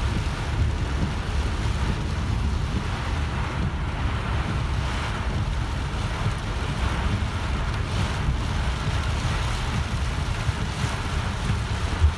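Car driving in heavy rain: a steady low road rumble with a constant hiss of rain and wet tyres.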